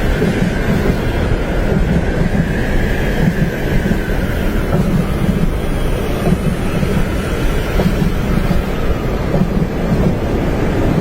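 Train running on the tracks, heard from inside the carriage: a steady, loud rumble that pulses unevenly, with wind noise over it and a faint high whine that rises and falls slowly.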